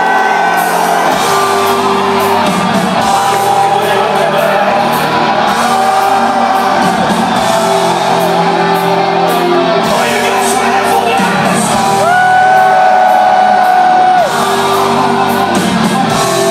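Metal band playing live through a hall's PA, with the singer's voice over loud guitars and drums; a long held sung note about twelve seconds in.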